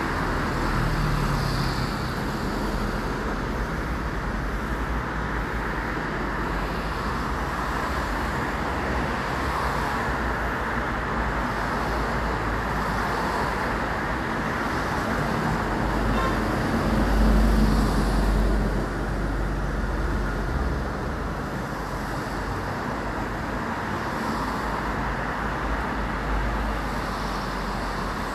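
Steady road traffic noise with a low rumble, louder for a couple of seconds a little past halfway as a vehicle passes closer.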